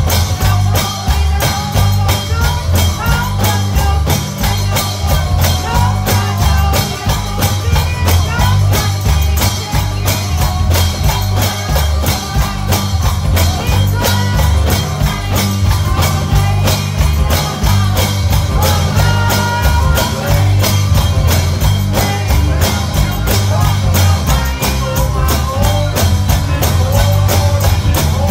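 Live gospel band music at a fast tempo: heavy bass and a steady, quick beat, with a melody line winding over it.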